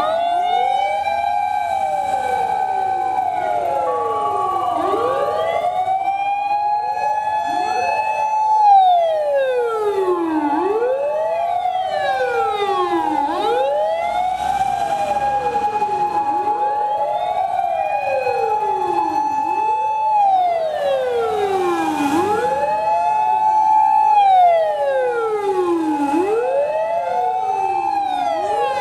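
Sirens of several Japanese fire engines wailing together in a procession. Each rises, holds, and falls away every few seconds, out of step with the others, so the wails overlap continuously.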